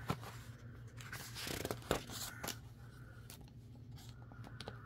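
A page of a thin paperback picture book being turned by hand: a brief paper rustle about a second and a half in, with a few light clicks and taps of handling the book.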